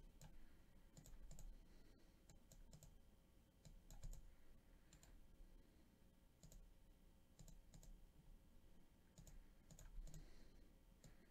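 Faint, scattered clicks of a computer mouse and keyboard, irregular single clicks every half second to a second or so.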